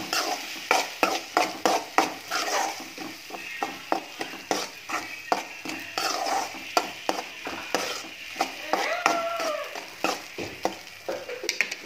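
Metal spatula scraping and knocking against a metal kadai as a ground coconut masala paste is sautéed in hot oil, with a light sizzle under the stirring; the spatula strokes come several times a second. A brief high call sounds in the background about nine seconds in.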